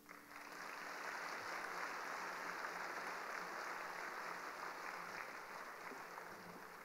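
Audience applauding in a large hall, swelling in within the first half second and fading away near the end.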